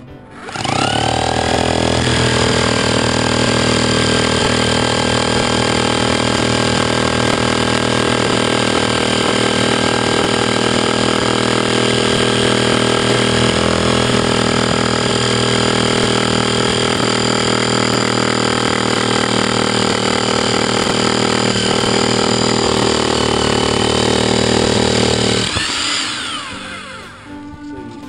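Hammer drill with a 2-inch core bit boring through face brick. The motor spins up within the first second, runs steadily under load, and winds down near the end.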